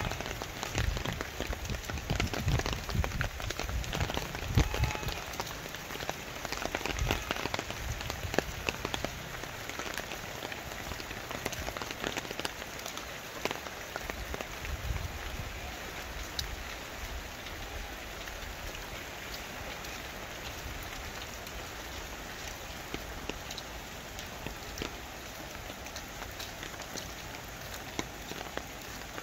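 Steady rain falling, an even hiss with many small drop hits throughout. Low thumps stand out in the first several seconds.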